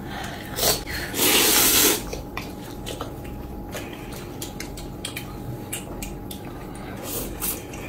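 A man slurping yellow noodles with chopsticks from a bowl held to his mouth: one long, loud slurp about a second in, with shorter slurps near the start and near the end. Light clicks of chopsticks against bowls.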